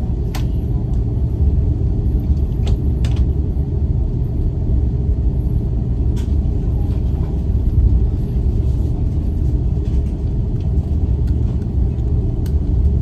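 Airbus A330 taxiing, heard from inside the cabin: a steady low rumble of the engines at taxi power and the wheels rolling, with a few sharp clicks now and then.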